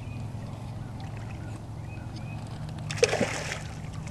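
Hooked fish splashing at the water's surface while being played on a rod and line, a short burst of splash about three seconds in, over a steady low hum.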